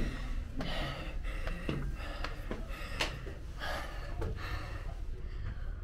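A person breathing hard and fast while climbing a steep, narrow stone stairway, a quick heavy breath roughly every half second, close in a small enclosed stairwell.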